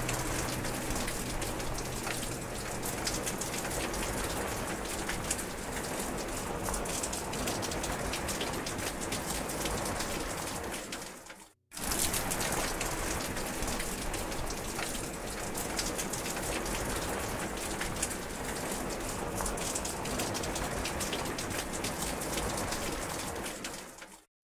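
Steady rain, a dense patter of individual drops on a surface. Near the middle it fades out to a moment of silence and then starts again, and it fades once more near the end.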